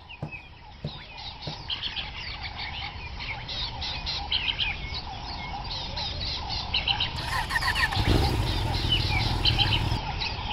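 Many birds chirping, a dense chatter of quick, high twitters throughout. A low rumble comes in about eight seconds in.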